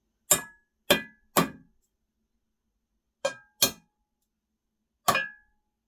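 Porcelain tiles tapped sharply six times, each knock giving a short bright clink with a brief ring, to knock out the small pieces cut around the pipe holes. The knocks come in groups: three in the first second and a half, two more about three and a half seconds in, and one near the end.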